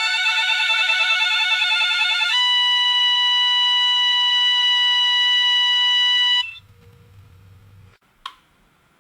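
Electronic alarm tone: a warbling, trilling ring for about two seconds, then a steady high beep for about four seconds that cuts off suddenly. A faint low hum follows, and a single click near the end.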